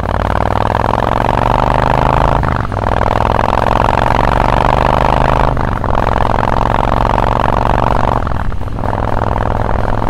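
Honda VT1300 V-twin running through Cobra 3-inch slip-on mufflers as the bike accelerates through the gears: the exhaust note climbs in pitch, drops off at each of three upshifts roughly three seconds apart, then climbs again.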